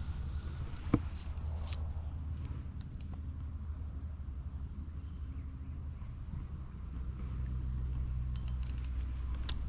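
Outdoor summer ambience by a pond: a high, steady insect buzz that drops out briefly a few times, over a low wind rumble on the microphone. There is a single sharp click about a second in and a quick run of small ticks near the end.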